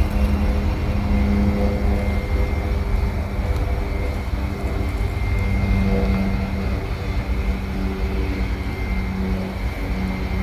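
A double-stack intermodal freight train of container well cars rolling past close by: a steady rumble of steel wheels on rail, with a thin, steady high-pitched whine over it.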